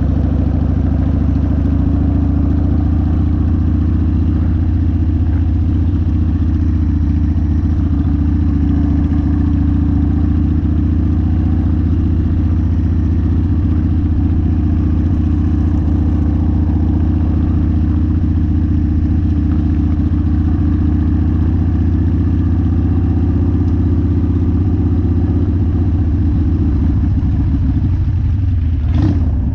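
1999 Harley-Davidson Sportster's V-twin engine running steadily, with wind noise on the microphone. The owner hears a metal-on-metal noise from it that he cannot place: it comes only at some road speeds and never at idle, and the oil, primary oil and primary chain tension have just been seen to. A brief disturbance comes near the end.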